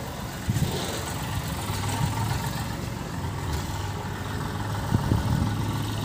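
A tractor's diesel engine idling, with a steady low hum.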